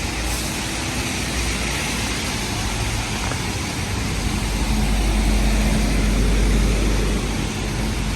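Rainy city street: a steady hiss of rain and wet traffic, with a vehicle's low engine rumble building from about halfway and easing near the end.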